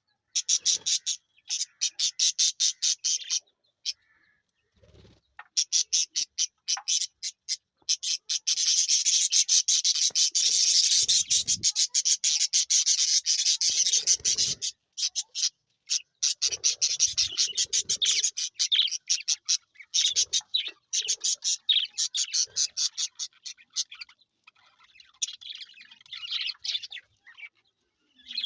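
Budgerigars chirping in fast trains of short, raspy chirps, in runs broken by brief pauses, with one long unbroken run in the middle.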